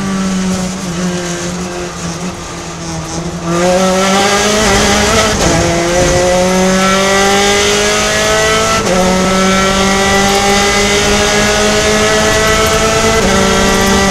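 Gen3 Spec Racer Ford's engine heard from the cockpit: part throttle through a corner, then full throttle about three and a half seconds in. It pulls up through the gears, the pitch rising and dropping at each of three upshifts.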